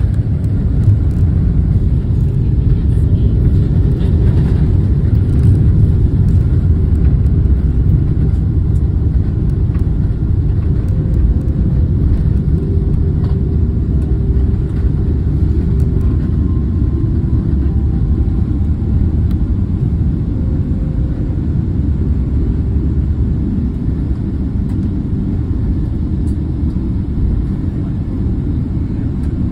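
Airliner cabin noise on the ground roll: a loud, steady low rumble of the jet engines and wheels on the runway, easing off gradually as the plane slows and turns onto the taxiway.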